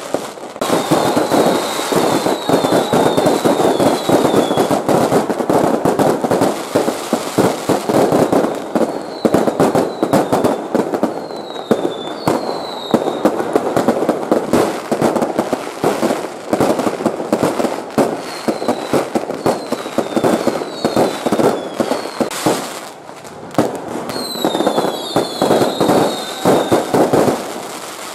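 A fireworks display going off overhead: a dense, continuous barrage of bangs and crackling from bursting aerial shells. Runs of short falling whistles come through several times.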